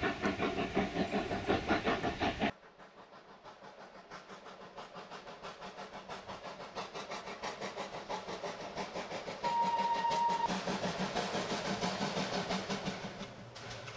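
Steam locomotive working hard with rapid, rhythmic exhaust chuffs. About two and a half seconds in, the sound cuts abruptly to quieter chuffing that slowly grows louder. Around two-thirds of the way through, a single steady steam whistle blast sounds for about a second.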